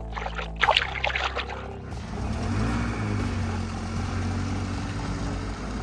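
Animated-cartoon truck engine sound effect running steadily, with a rushing hiss laid over it from about two seconds in. A few short pitched sound-effect sweeps come in the first second.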